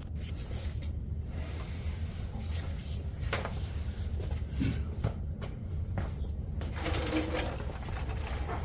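Scattered metal clinks and knocks of hand tools and brake parts being handled, over a steady low hum.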